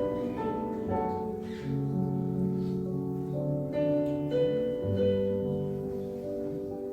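Electronic keyboard playing a hymn arrangement on a piano-like voice, with held chords under a slow melody.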